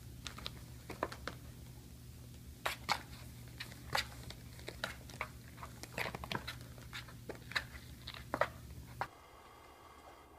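Kittens scrambling in a cardboard box, their claws and paws scratching and crinkling the cardboard in irregular sharp scrapes and clicks. About nine seconds in it cuts off abruptly, leaving a quieter steady background.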